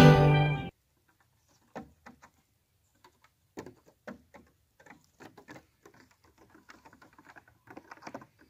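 Nigerian dwarf goat kids' hooves tapping and clattering irregularly on a wooden picnic table top. A song fades out in the first second.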